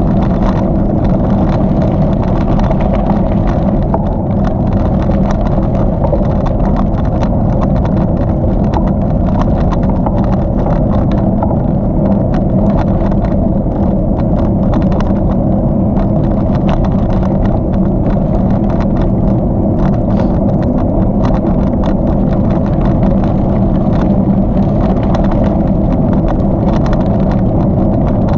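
Steady loud rumble of a bicycle ride: tyres rolling over the trail surface and wind on the microphone, with frequent small knocks and rattles.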